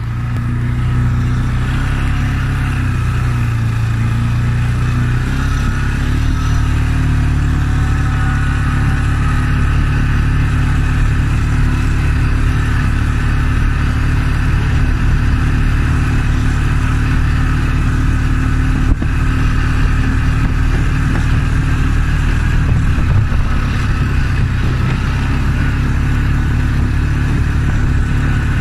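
Polaris ATV engine running steadily under way over rough field ground, a low even drone, with one sharp knock about two-thirds of the way through.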